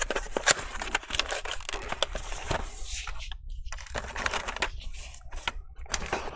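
A small cardboard box being opened and handled by hand, with a run of scrapes, taps and crackles from the cardboard flaps and the clear plastic tray inside.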